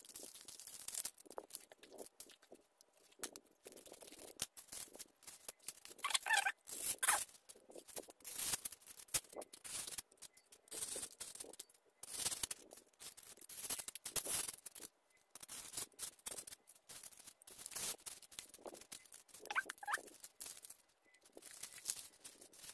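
Plastic bouquet wrapper sheets and foil spice sachets rustling and crinkling as they are handled, in irregular bursts, with two short squeaks, one about six seconds in and one near the end.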